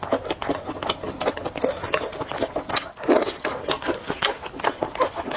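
Close-miked eating of spicy noodles: chewing with many short, irregular wet clicks and smacks.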